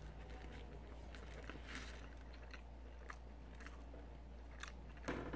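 A person chewing a mouthful of burger: soft, scattered mouth clicks over a steady low hum, with a louder burst of noise about five seconds in.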